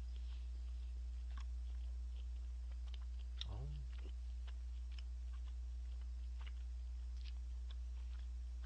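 Mouth sounds of someone chewing a piece of steak: faint scattered wet clicks, with a brief hummed voice sound about three and a half seconds in. A steady low electrical hum runs under it all and is the loudest thing.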